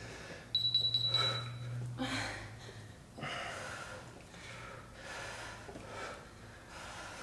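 Hard breathing of a person straining through a leg-raise ab exercise, with puffs of breath about once a second. A thin steady high tone sounds for about a second and a half near the start.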